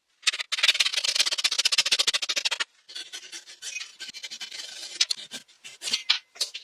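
Wood being worked by hand with rapid scraping strokes: a dense run of fast strokes, a short pause, a softer stretch, then a few separate harder strokes near the end.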